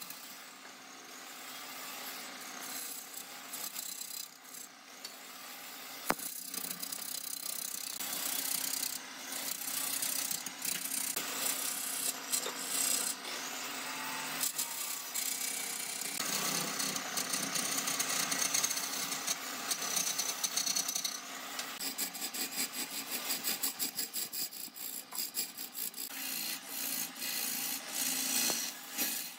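A tool scraping and rasping against wood in a steady noisy run. Late on it turns into a quick series of rapid strokes.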